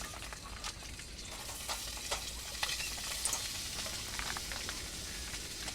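Food sizzling in a hot pot, a steady hiss with scattered small pops and crackles.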